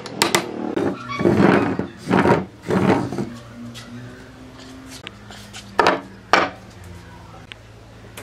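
Wood being handled in a workshop: a couple of seconds of rubbing and scuffing, then two sharp wooden knocks about half a second apart.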